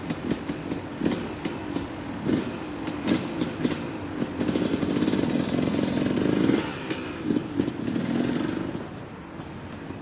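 An engine running, its pitch rising and falling, loudest in the middle and easing off near the end, with many sharp clanks and knocks throughout.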